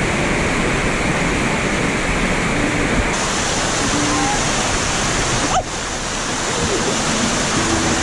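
Steady rush of water over rocks in a shallow stream, changing about three seconds in to the brighter, hissing pour of a waterfall splashing into a pool close by.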